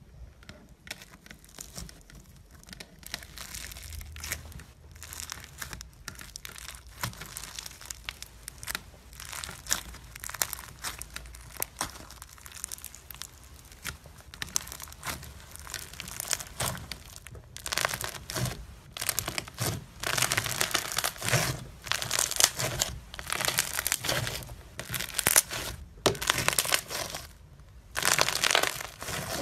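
Shiny fabric sheet rustling and crinkling irregularly as a motorized animatronic tentacle writhes and slides across it. The rustling grows louder and busier from a little past halfway.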